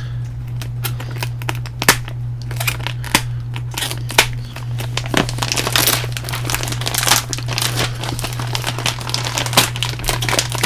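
Thin clear plastic bag crinkling and crackling as it is handled and pulled open by hand, with many sharp irregular crackles. A steady low hum runs underneath.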